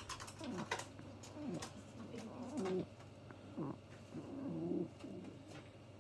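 Domestic pigeon cooing repeatedly, a series of low, gliding coos about a second apart, with a few faint clicks between them.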